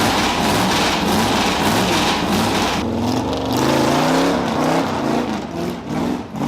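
Chevrolet 454 big-block V8 running just after a cold start, its revs rising and falling unevenly. The engine is cold and short of choke.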